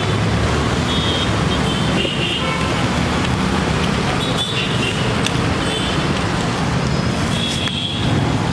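Roadside traffic noise: engines of passing vehicles running steadily, with short high horn-like tones sounding now and then.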